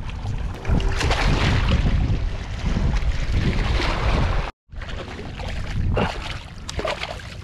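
Wind blowing on the microphone over waves washing at the shore, with scattered clicks and knocks; the sound drops out for an instant about four and a half seconds in.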